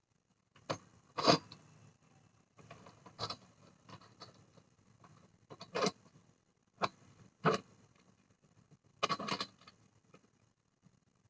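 Handling noise while something is being fixed by hand: about seven short scrapes and clatters with quiet gaps between them, the loudest about a second in.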